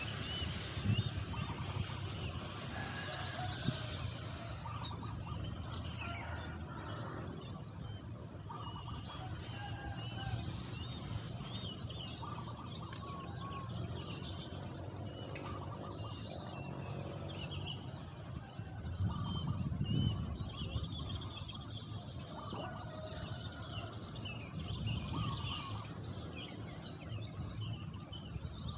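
Wild birds singing and calling, many short chirps and warbling phrases overlapping, over a steady low rumble that swells briefly a little past the middle and a constant thin high-pitched whine.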